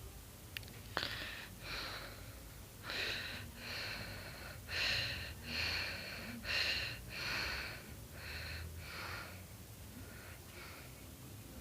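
Breathing close to the microphone: about six in-and-out pairs of short, breathy hisses, preceded by a sharp click about a second in.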